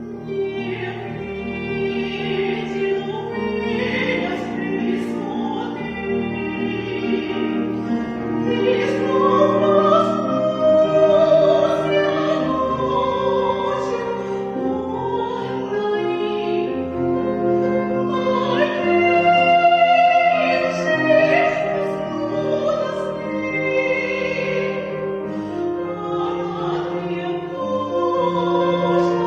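Operatic singing over instrumental accompaniment: a voice with vibrato holding long, swelling notes above sustained chords.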